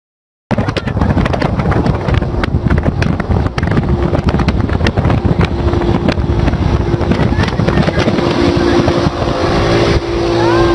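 Loud road and wind noise of travelling at expressway speed, with crackling buffets on the microphone and a steady engine drone that grows stronger from about four seconds in.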